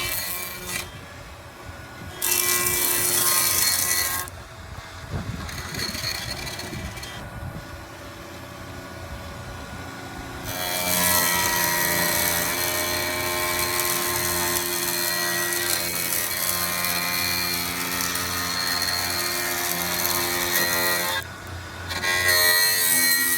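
Sawmill planer's 20-inch spiral cutter head, driven by a 5 horsepower motor, planing a black walnut slab: a rough cutting noise over a steady pitched hum. It grows loud while the head bites into the wood, briefly about two seconds in, for a long pass from about ten to twenty-one seconds, and again near the end, and runs quieter in between.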